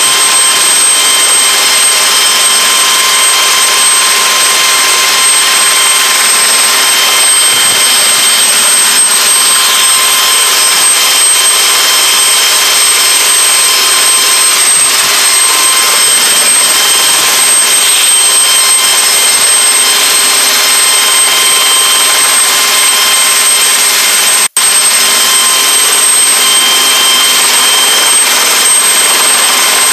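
Helicycle's Solar T62 turbine engine and rotor running steadily, heard from the cockpit as a loud hiss with several steady high whining tones. The sound cuts out for an instant about 24 seconds in.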